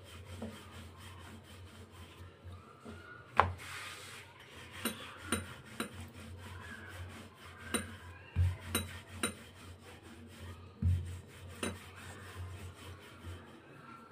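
Dough being rolled out with a wooden rolling pin on a floured stone counter: a low rubbing rumble that swells with each stroke, broken by a few light knocks, the sharpest about three and a half seconds in.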